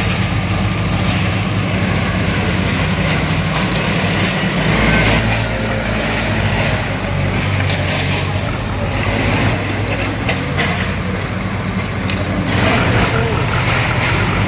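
Diesel engines of several backhoe loaders running under load while they tear down a building, with scattered knocks and clatter from the demolition.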